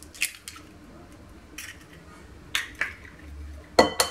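Eggs being cracked into a glass mixing bowl: a series of short sharp taps and cracks of eggshell against the glass, the loudest near the end.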